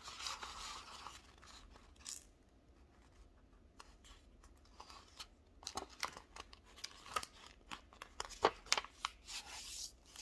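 A sheet of paper being folded into a paper airplane by hand: soft rustles and scrapes with light taps. There is a brief rustle at the start, a quiet gap, then denser handling from about the middle on.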